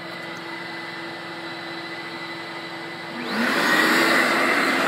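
Steady drone of the extractor's Lamb vacuum motors pulling through a long hose. About three seconds in, the Mytee Airhog inline vacuum booster is switched on and its motors spin up with a rising whine, and the sound gets much louder.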